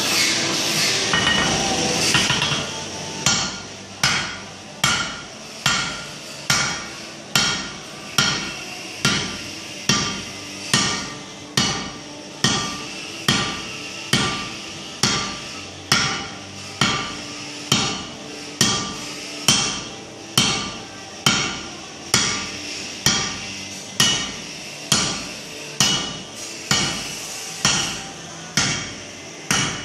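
Hand hammer striking a glowing-hot bar of 1045 steel on an anvil in a steady rhythm, about one blow every 0.8 seconds, starting about two seconds in. Each blow is followed by a brief ring from the anvil.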